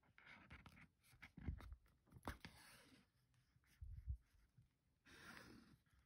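Faint hand-stitching of leather: thread drawn through the stitch holes with a soft rasping hiss, three pulls, with a few dull knocks from handling the piece.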